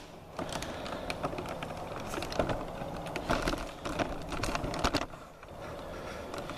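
Irregular light clicks and clinks of metal parts being handled: a cam bearing installer tool being shifted and rearranged in the engine block. The clicks thin out near the end.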